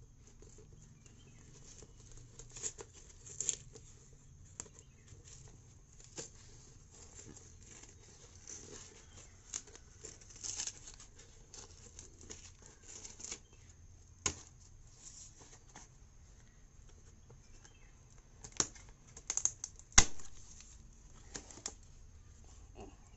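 Packing tape being peeled and torn off a cardboard box, with cardboard flaps rustling and scattered sharp clicks and knocks. The loudest knock comes about twenty seconds in.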